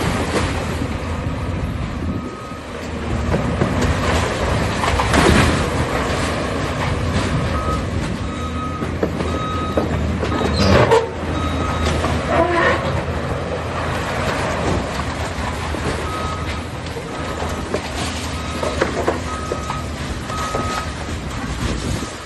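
Heavy demolition machinery running with a steady low rumble, a reversing alarm beeping in two spells of about two beeps a second, and a few loud crashes, the loudest about eleven seconds in.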